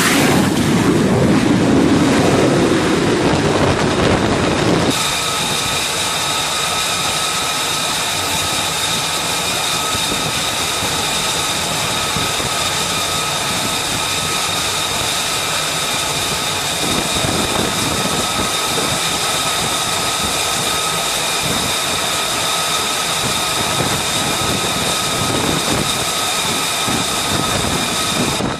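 Loud jet engine roar for about five seconds, then an abrupt change to the steady high whine of an F-35C's single F135 turbofan running on the carrier deck, several high tones held without change.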